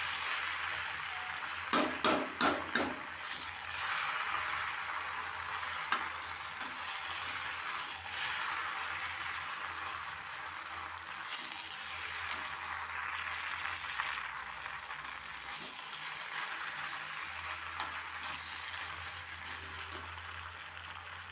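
Macaroni with vegetables sizzling as it fries in a pan while being stirred, a steady hiss throughout. About two seconds in, a quick run of four or five sharp knocks of the spoon against the pan, with one more click a few seconds later.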